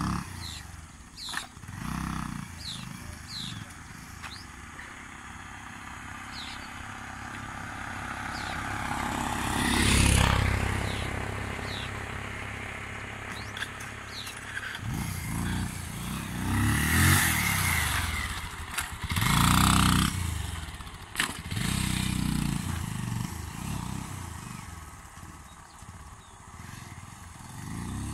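Bajaj Pulsar 220F motorcycle's single-cylinder engine being ridden, its revs rising and falling, loudest about ten seconds in, with several short bursts of throttle in the second half.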